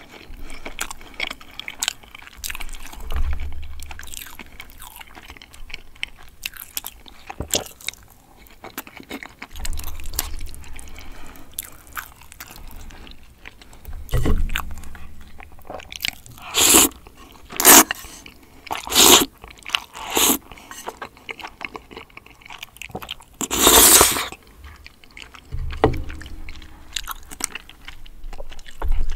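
Close-miked eating: chewing and wet mouth clicks of braised chicken and cream spaghetti, with four loud short slurps of noodles in quick succession about halfway through and one longer slurp a few seconds later.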